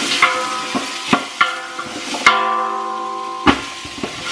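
Chopped onion dropped by hand into a hot enamel stockpot of oil, sizzling, with several knocks against the pot that set its metal ringing. The loudest knock comes about two seconds in, and its ring lasts about a second.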